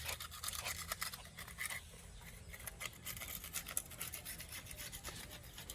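Faint, quick, irregular scratchy rubbing strokes, like sandpaper worked by hand on a cement skim coat.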